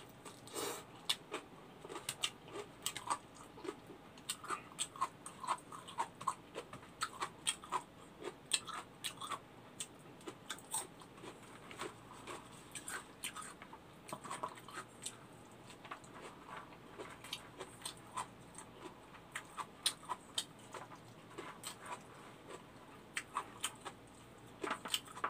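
Close-up mouth sounds of a person eating kimchi and rice by hand: a steady stream of irregular wet chewing clicks and lip smacks.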